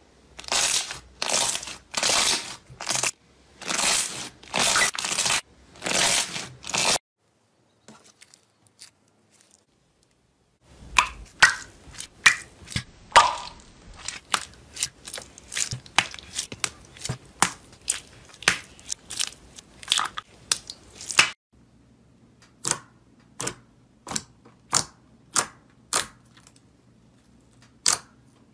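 Slime being squeezed and worked by hand: first a run of rhythmic squelching strokes, then a few seconds of near silence, then dense crackling and popping clicks that thin out to single pops about two a second.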